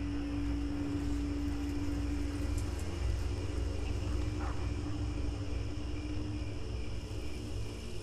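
Spooky night-forest ambience: a steady low wind rumble under a sustained droning tone that weakens near the end, with a faint steady high hum.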